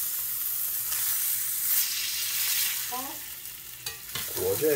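A dry-aged ribeye sizzling in hot fat in a cast iron skillet while it is basted with a spoon. The sizzle eases a little before four seconds in, with a single click as the steak is turned. A brief pitched, voice-like sound comes near the end.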